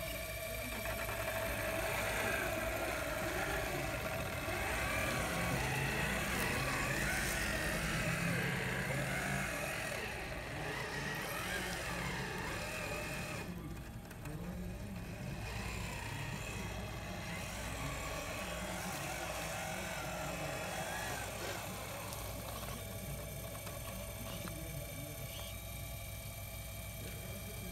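Radio-controlled scale model of a Caterpillar 785 haul truck running, a steady engine-like drone with a shifting whine as it drives; it is loudest for a few seconds early in its run and then settles to a steadier hum.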